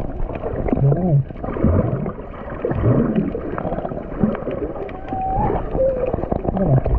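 Indistinct voices calling out over splashing, sloshing water.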